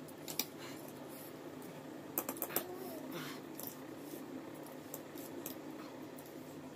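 Metal forks clicking and scraping against plastic food trays while noodles are eaten, with a quick cluster of sharp taps about two seconds in.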